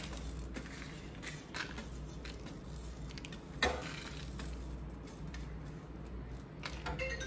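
Whole spices and dal dropped by hand into a dark metal kadai: a light scattered pattering of falling grains with a few clicks, the sharpest about three and a half seconds in, over a low steady hum.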